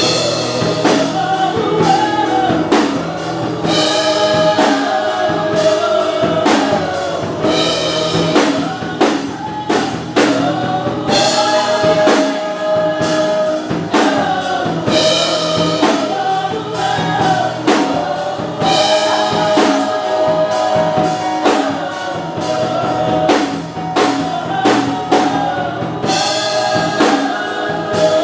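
Gospel choir singing with band accompaniment and a drum kit keeping a steady beat.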